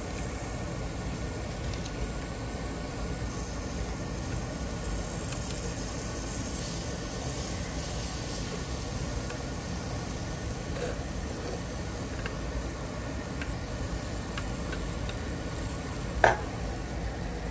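Food sizzling steadily on a tabletop barbecue grill, with one sharp clink about a second before the end.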